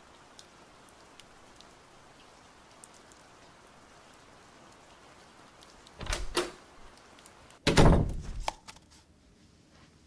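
Faint outdoor hiss, then a soft double thud about six seconds in as a rolled paper scroll drops onto grass, followed a second and a half later by a louder, heavier thump and a few light clicks.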